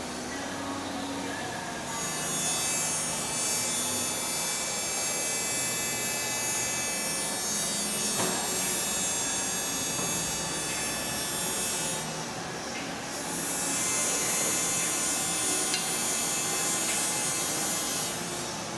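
Hydraulic CNC press brake running through a bending cycle: a steady whine and hum with many high tones, growing louder about two seconds in, dropping briefly around twelve seconds, then rising again.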